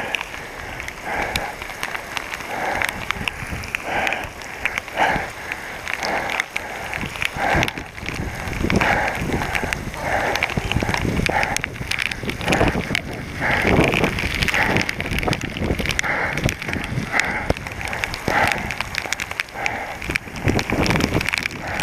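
Heavy, fast breathing close to the microphone, about one breath a second, over a steady hiss of rain and wind on the mic, with scattered small clicks and knocks.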